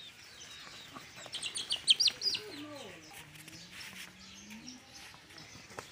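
Farmyard chickens calling: a quick cluster of sharp, high chirps about a second in, then lower drawn-out calls that glide up and down.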